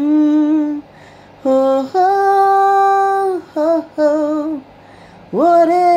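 A woman singing a slow Tamil song in long held notes, with two short breaks between phrases.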